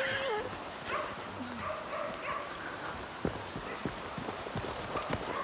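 Quick footsteps of someone hurrying along a dirt and grass path, starting about three seconds in at roughly three steps a second. Before them, faint dog barks.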